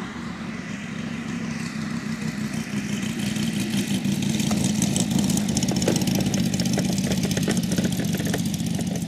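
Five-cylinder Moki 250 radial engine of a large model Stearman PT-17 biplane running at low throttle on the landing approach, growing louder as the plane comes in. After touchdown about four seconds in, scattered knocks join as it rolls on the grass.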